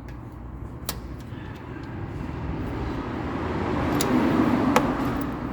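A road vehicle going past, its noise swelling to its loudest about four seconds in and then easing off, with three sharp clicks along the way.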